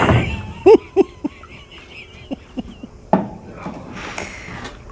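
A series of hollow metal knocks, several with a short ringing tone, as a mud-filled tin can with a fishing magnet stuck to it is knocked about. Three come in quick succession about a second in, and a louder one about three seconds in.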